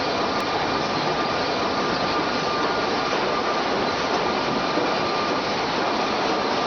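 Steady industrial machinery noise from a lumber production line: a dense, even hiss with a faint steady whine, unchanging throughout.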